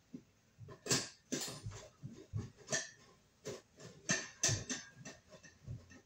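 Hand screwdriver driving the screws that fasten a ceiling light's mounting bracket, giving irregular clicks and scrapes, some with a dull thud.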